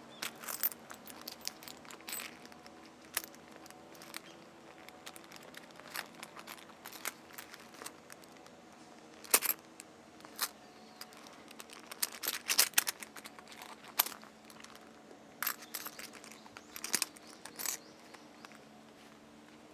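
Irregular sharp clicks and taps, single or in quick clusters, with a cluster of louder ones about twelve to thirteen seconds in, over a faint steady background hum.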